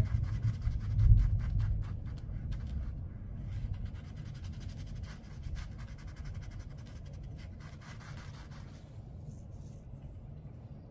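Paintbrush dabbing and scrubbing paint onto watercolour paper, a quick run of small scratchy taps that stops near the end. Under it a low rumble of thunder from a storm, loudest about a second in and then fading.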